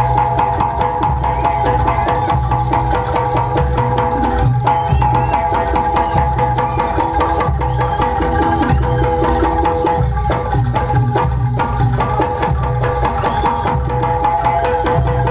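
Live East Javanese jaranan gamelan music: hand drums beating a busy rhythm under steady held tones from the melodic instruments. The held tones drop out briefly about ten seconds in while the drumming carries on.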